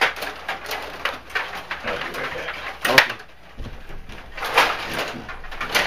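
Clacks and rattles of a Stiga rod hockey game in play: the plastic players and puck knocking, with sharp knocks at the start, about three seconds in, and near the end.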